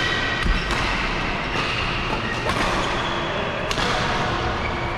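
Badminton rackets striking shuttlecocks during play: several sharp hits at irregular intervals, about a second apart, with short squeaks of shoes on the court mats between them.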